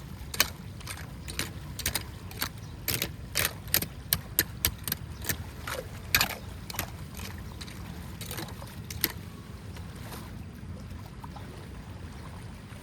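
Water splashing and sloshing in quick, irregular sharp bursts over a steady low rush, for about the first nine seconds; then only the steady low rush remains.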